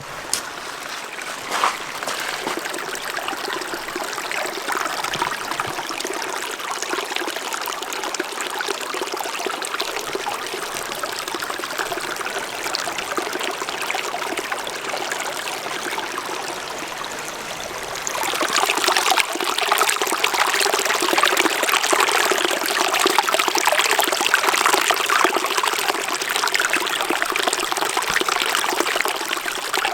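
Flowing stream or small river: water babbling and trickling over stones in a continuous rushing wash. A short splash or knock comes a couple of seconds in, and about two-thirds of the way through the flow grows louder and brighter.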